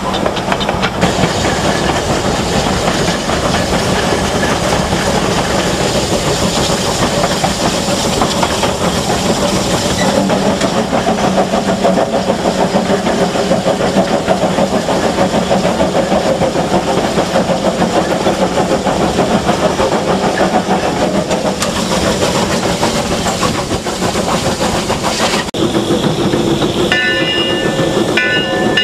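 Eureka & Palisade No. 4, a wood-burning Baldwin 4-4-0 narrow-gauge steam locomotive, running along the track: a steady dense sound of exhaust, steam hiss and running-gear and rail clatter. Near the end, high steady tones sound on and off above it.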